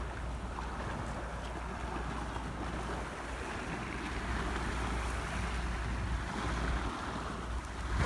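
Wind buffeting the microphone with a steady low rumble, over the wash of choppy estuary water.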